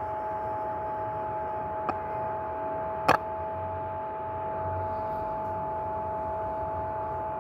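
A steady humming whine on two pitches, with two sharp clicks about two and three seconds in, the second louder.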